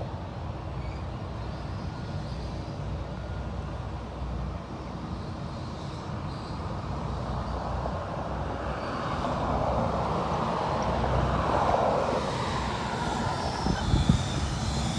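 Iowa Traction Railway electric steeple-cab locomotive rolling slowly with a train of grain hopper cars, a steady low rumble from its running gear. A louder rushing sound builds from about eight seconds in, and a few heavy knocks come near the end.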